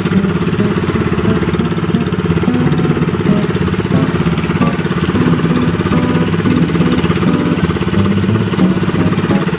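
Small engine of a motorized outrigger fishing boat (bangka) running steadily as the boat moves under way, with a fast, even firing beat.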